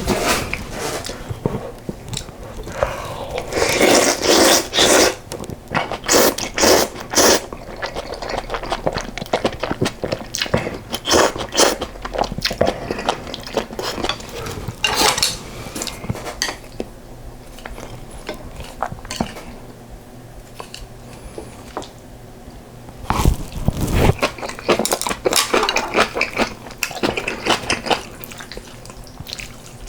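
Close-miked eating sounds: a spoon and chopsticks clinking and scraping against a bowl, with chewing and crunching of fresh kimchi between bites of rice soaked in yukgaejang soup. The clicks come in clusters, with a louder knock a little past the middle.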